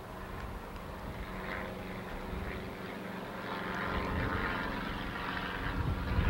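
Norfolk & Western No. 1218, a Class A 2-6-6-4 articulated steam locomotive, heard close up at its running gear: a steady mechanical rumble over a constant low hum, growing louder about halfway through.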